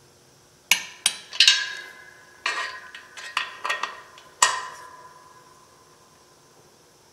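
Sharp metal clinks with a short ring after each, about eight of them over the first four and a half seconds: a socket and torque wrench knocking against and seating on the pressure plate bolts of a small-block Chevy clutch, during tightening to torque.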